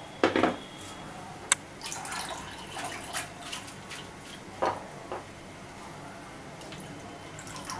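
Water dripping and trickling from a sieve of freshly rinsed poha (flattened rice), with the small wet clatter of the sieve being handled. A loud knock comes just after the start, and a sharp click about a second and a half in.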